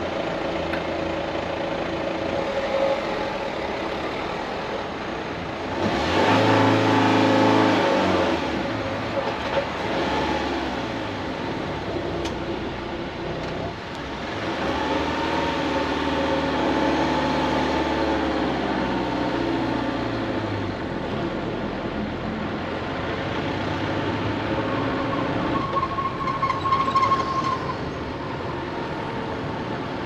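Street traffic: engines of passing motor vehicles, one going by close and loud about six seconds in, and another building up and fading away between about fifteen and twenty seconds in.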